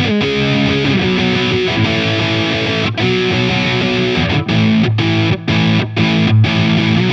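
Donner Hush-X headless electric guitar in active pickup mode, played with a distorted drive tone. Held chords and notes with a bend of the pitch just after the start, then short, choppy stop-start chords from about four seconds in.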